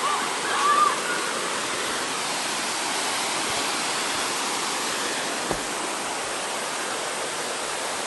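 Mountain stream rushing steadily over rocks and down small falls. A brief high wavering call rises above the water near the start, and there is a single small click about five and a half seconds in.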